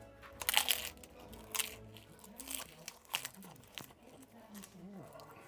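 Crisp poppadom crunching as it is bitten into and chewed: a cluster of sharp crunches in the first two seconds and another about three seconds in, followed by softer chewing with a few low murmurs.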